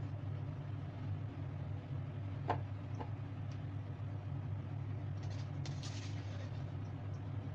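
A steady low machine hum runs throughout, with a few clinks and a short scraping of a spatula against the plate and pan as fried chicken and potatoes are served out.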